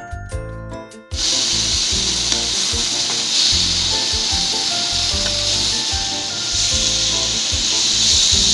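Sliced beef sizzling in oil in a hot nonstick frying pan as it is stirred with a spatula, a loud steady hiss that starts suddenly about a second in. Jingly background music plays before it and goes on faintly underneath.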